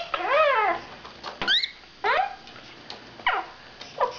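Quaker parrot (monk parakeet) babbling: a string of about five short pitched calls, some arching, one rising sharply, others falling in pitch.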